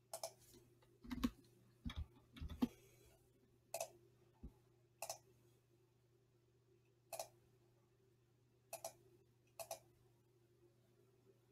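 Computer mouse clicks: about nine short, sharp clicks at irregular intervals, a few in the first three seconds with a duller knock, over a faint steady hum.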